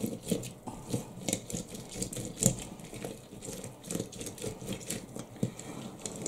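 A lemon half being twisted and pressed on a small plastic hand citrus juicer set on a glass jar. It makes an irregular run of short rubbing, scraping strokes, a few a second.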